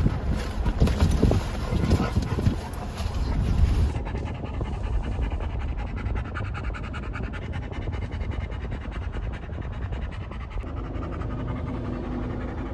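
Pet dog panting quickly and steadily, with a low rumbling noise under the first few seconds.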